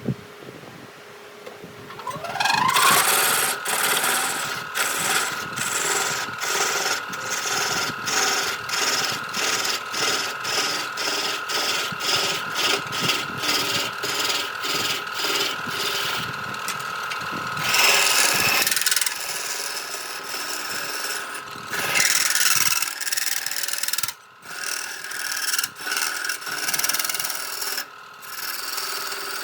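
An electric power tool's motor spins up about two seconds in and holds a steady whine while it grinds or sands wood. Regular scraping strokes come about twice a second, with louder passes near the middle and later on.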